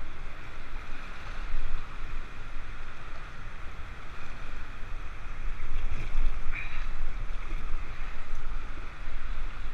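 Whitewater rapids rushing steadily past a small inflatable raft, with wind rumbling on the microphone; a brief splash about two-thirds of the way through.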